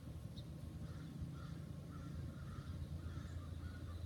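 Quiet outdoor ambience: a steady low rumble with a few faint bird calls, such as crows cawing.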